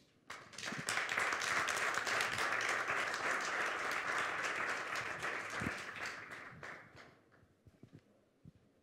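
Audience applauding: the clapping builds within the first second, holds steady for several seconds, then dies away about seven seconds in.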